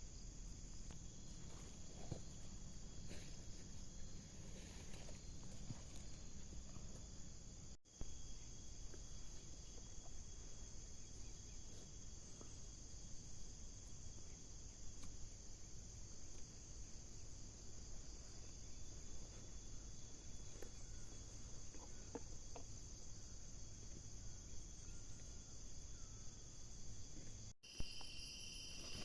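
Faint, steady chorus of insects such as crickets, with a continuous high-pitched chirring. It breaks off twice for a moment, about 8 seconds in and near the end, and the chorus sounds a different pitch after the second break.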